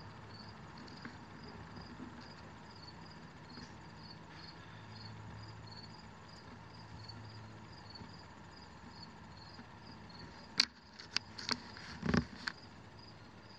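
An insect chirping steadily in the background, evenly spaced high chirps about two to three a second, over a faint low hum. A few short sharp clicks and knocks come near the end.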